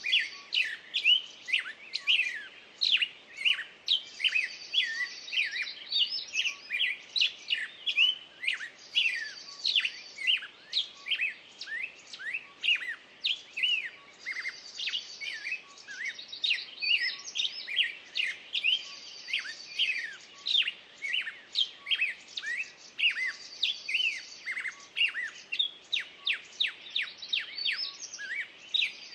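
Songbirds singing in a dense chorus of quick chirps and whistles, with a short buzzy trill repeating about every five seconds.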